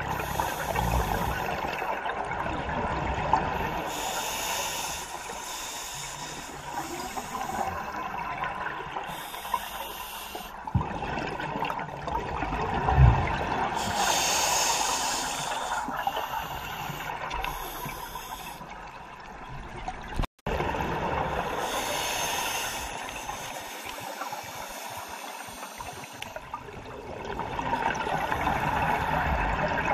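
Scuba regulator breathing heard underwater: a hissing breath through the demand valve with a gush of exhaled bubbles, recurring about every four to five seconds over a steady watery background.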